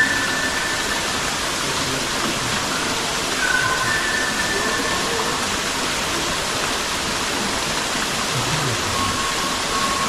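Steady rush of water from a waterfall, with a few brief, faint high whistling tones.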